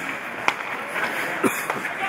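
Ice hockey play in a rink: skates scraping on the ice under a steady hum of the arena, with two sharp clacks about a second apart.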